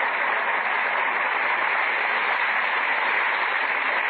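Studio audience applauding, a steady even clatter of clapping on an old radio-broadcast recording with a dull, narrow top end.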